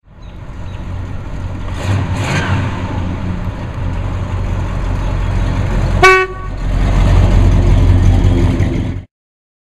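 1970 Oldsmobile Cutlass 442's 455 V8 running as the car drives past, with one short car-horn toot about six seconds in. The engine gets louder near the end as the car passes close, then the sound cuts off abruptly.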